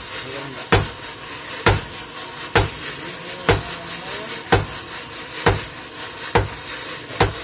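Sledgehammer blows on red-hot iron on a small anvil during hand forging, in a steady rhythm of about one strike a second, eight in all.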